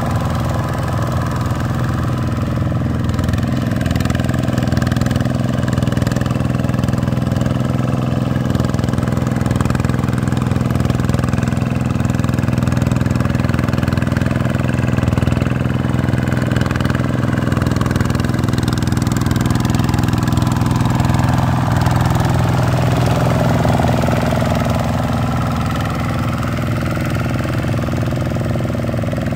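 Vikyno RV125-2 hand tractor's single-cylinder diesel engine running steadily under load as its cage wheels work through paddy mud.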